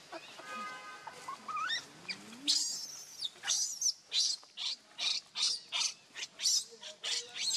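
Newborn monkey crying: a few whining calls, one rising, then from about two and a half seconds in a run of short, high-pitched squeals, roughly two a second.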